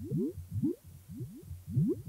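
Electronic soundtrack of low, bubbly bloops, each sliding quickly upward in pitch, about four a second over a low pulsing hum.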